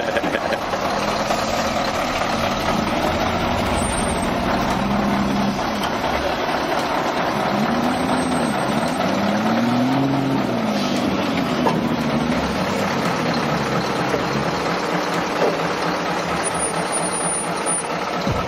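Heavy multi-axle military truck's diesel engine running as the truck crawls through soft dirt. The engine note rises and falls several times in the middle.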